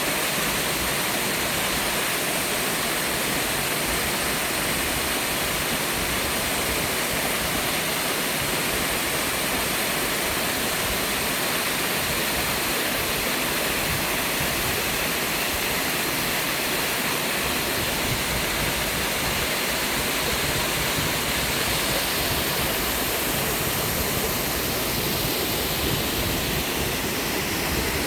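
Mountain-valley waterfall pouring steadily, a constant rushing of falling water.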